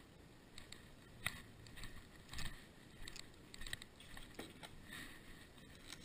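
Faint footsteps and handling noises: light knocks and rustles about every half second, the sharpest a little over a second in and again about two seconds in.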